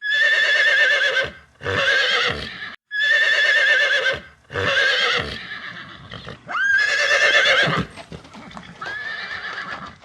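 Horse whinnying repeatedly: a string of about six high, quavering neighs, each about a second long, with short breaks between them.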